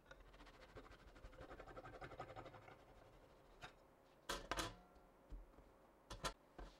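Faint rasping of a long knife sawing back and forth through a soft sponge cake for a couple of seconds, followed by a few light clicks and knocks as the knife and hands move against the metal guide bars and the board.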